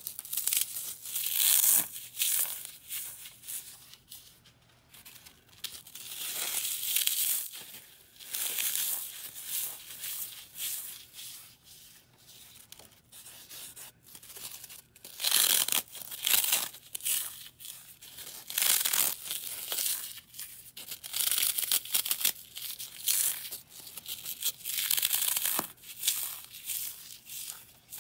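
Dry floral foam blocks, dusted with chalk and powder, being squeezed and crumbled between the fingers: a crisp, crackling crunch that comes in repeated squeezes, each a second or two long, with short pauses between.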